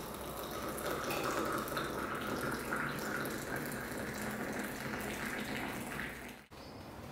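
Water running steadily from a tap, stopping abruptly about six and a half seconds in.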